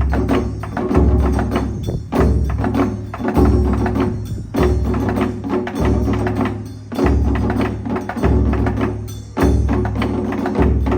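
Taiko ensemble drumming on nagado-daiko: deep booming strokes land about every second and a bit, with rapid sharp strokes filling the beats between.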